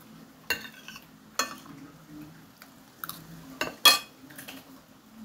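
Metal spoon clinking and scraping against a glass bowl, about five sharp clinks, the loudest a little before four seconds in.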